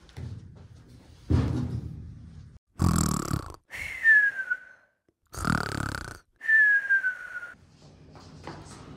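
Cartoon-style snoring, twice: each time a rasping snore in, then a whistle out that falls in pitch.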